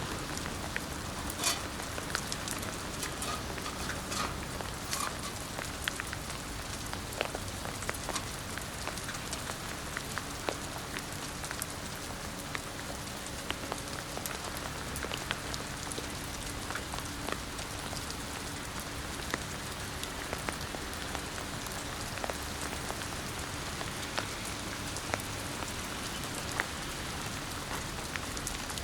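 Steady hiss of rain, with many scattered sharp ticks of drops.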